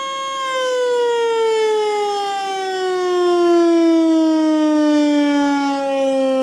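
ASC T-121 outdoor warning siren winding down at the end of its 45-second test alert. Its steady, loud tone begins to fall about half a second in and slides smoothly lower in pitch as the rotor slows.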